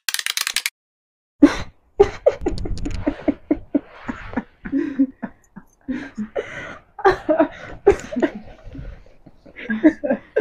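A young woman laughing in short, choppy bursts with breathy vocal sounds, loud in places. A dense crackle at the very start cuts off abruptly.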